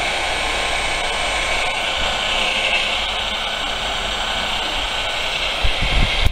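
Handheld electric polisher running steadily, its pad buffing a plastic headlight lens: a steady motor whine with a hiss. A few low bumps come near the end.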